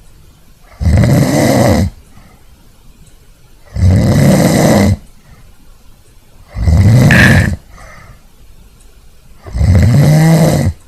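A person snoring loudly: four rasping snores, each about a second long, about three seconds apart, with quiet breaths between. The uploader presents this snoring as a symptom of obstructive sleep apnea.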